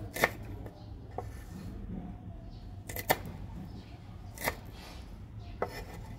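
Chef's knife chopping through lemongrass stalks onto a wooden cutting board: about six sharp knocks at uneven spacing, two of them close together near the middle.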